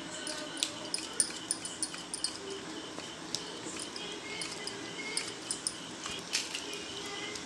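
Mustard seeds popping and crackling in hot oil in a kadai: an irregular run of sharp little pops over a faint sizzle. The popping shows the oil is hot and the tempering is ready for the next ingredients.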